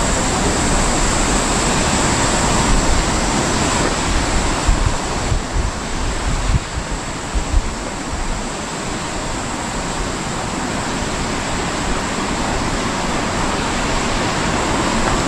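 Wind buffeting the microphone in uneven low gusts over a steady rushing hiss with a thin high edge.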